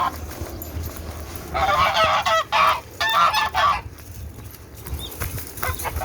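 Domestic geese honking: two loud runs of calls, about a second and a half in and again about three seconds in.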